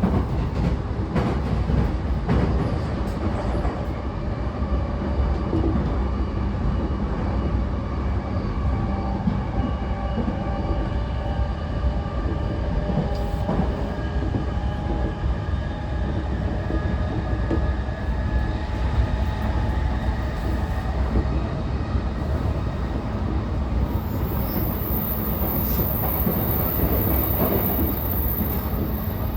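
Inside a JR East E233-5000 series electric motor car running at speed: a steady rumble of wheels on rail and traction equipment, with faint steady motor tones over it. A faint high tone joins near the end.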